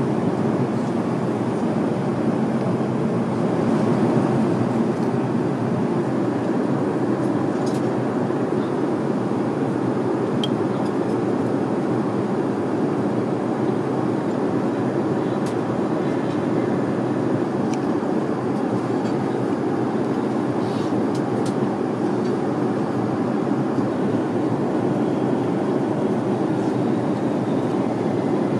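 Airliner cabin noise in flight: the steady, even rush of the engines and airflow, with a few faint clicks.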